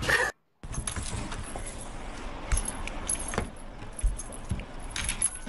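A cat pawing and batting at something on a hard surface: light metallic jingling with scattered clicks and a few soft knocks. The sound drops out briefly near the start.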